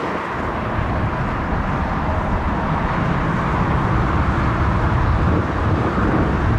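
Jet airliner engines running, a steady rumble that grows deeper and stronger about half a second in and then holds.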